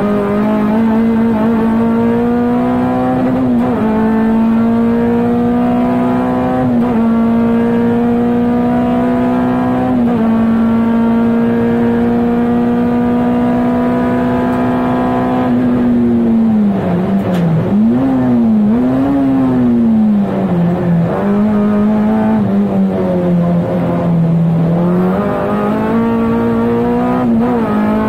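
Inside the cabin of a 1996 Honda Integra DC2 Type R race car, its swapped-in K24 four-cylinder engine held high in the revs for about fifteen seconds. It then drops as the car slows, with two quick rev blips on downshifts, runs lower for a few seconds, and climbs in revs again near the end.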